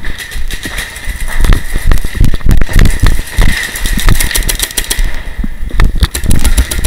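Paintball markers firing in rapid strings of sharp pops, many shots a second, thickest from about one and a half seconds in until about five seconds and picking up again near the end.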